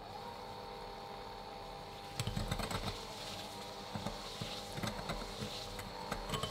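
Electric hand mixer switching on and running steadily at medium-high speed, its wire beaters creaming butter and sugar in a glass bowl. From about two seconds in, the beaters knock and rattle irregularly as they break up the lumps of butter.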